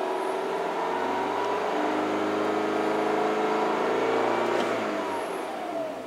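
2011 Mini Cooper S (R56) 1.6-litre turbocharged four-cylinder engine revving slowly under a gradual throttle, the pitch climbing steadily for about four and a half seconds. The throttle is then released and the revs fall away near the end. The warm engine runs without misfiring.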